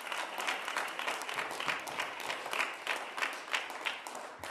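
A congregation clapping, with the claps falling into a steady beat of about three a second.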